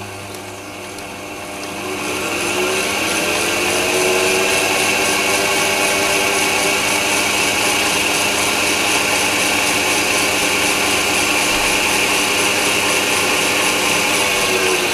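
Chinese mini lathe's variable-speed motor and headstock gears running in low gear through a belt speed reduction. It speeds up over the first few seconds as the speed knob is turned up, then runs steadily with a whine whose pitch rises and then slowly falls again.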